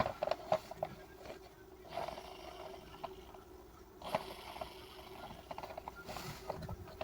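Small plastic toy car being handled and taken apart, giving light clicks and scrapes in clusters: at the start, about two seconds in, and about four seconds in.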